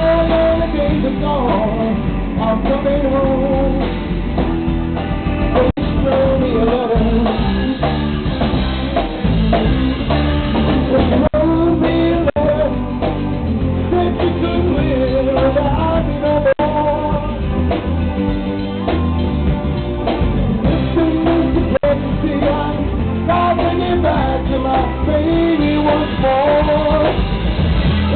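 Live blues-rock band playing loud: electric guitar over drum kit and bass, with a keyboard and a singing voice.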